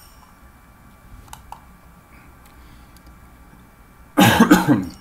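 A man coughs once, short and loud, about four seconds in. Before it there is only faint room tone with a couple of soft clicks.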